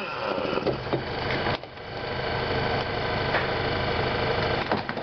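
Power tool, most likely an impact wrench, running with a fast rapid hammering while the bolts holding the rear strut to the steering knuckle are loosened; it drops off briefly about one and a half seconds in, then builds back up.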